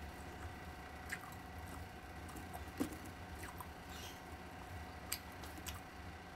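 Close-up eating sounds: chewing and soft wet squishes, with scattered light clicks as fingers press and pick up rice on a stainless steel tray; the sharpest click comes a little before 3 seconds in. A faint steady hum runs underneath.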